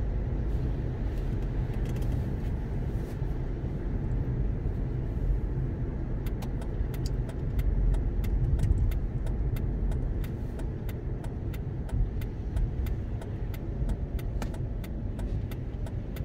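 Steady low rumble of a Mercedes-Benz car driving on a wet road, heard from inside the cabin. From about six seconds in, light, sharp ticks come a few times a second over the rumble.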